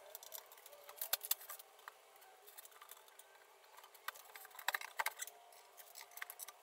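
Scattered light clicks and clinks of particleboard cabinet panels and small metal fittings being handled during flat-pack assembly, with a cluster about a second in and another around five seconds in.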